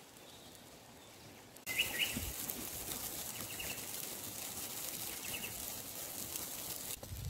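A few short bird chirps over a steady outdoor hiss. The hiss starts abruptly about two seconds in and cuts off just before the end.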